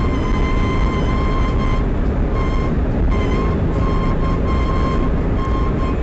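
Abnormal whine from a Honda N-BOX+ kei car: a steady high-pitched tone that drops out and comes back several times, over a loud low rumble.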